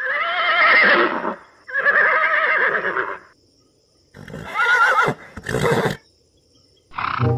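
Horse whinnying three times, each call shrill with a shaky, wavering pitch, followed by a short noisy burst.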